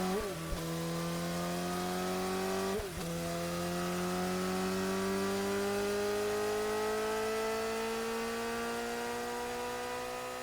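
Suzuki motorcycle engine accelerating, its pitch climbing steadily, with a brief dip in pitch near the start and another about three seconds in.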